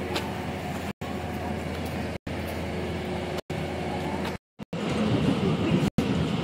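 Diesel DEMU train running with a steady low hum, broken by short silent gaps about every second. About four and a half seconds in it turns louder and rougher, a heavier rumble.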